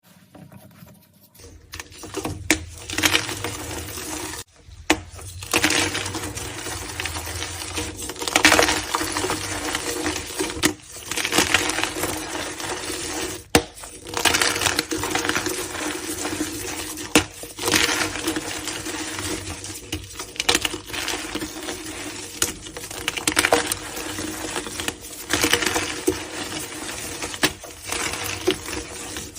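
Blocks of gym chalk being crushed: a dense, crunchy crumbling crackle with louder crunches every few seconds, broken by a few short gaps.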